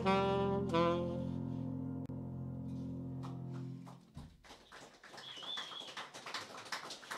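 Tenor saxophone and acoustic piano ending a jazz tune: the saxophone plays its last two notes, and a sustained piano chord rings on underneath them. The sound fades out about four seconds in, leaving only faint clicks and room noise.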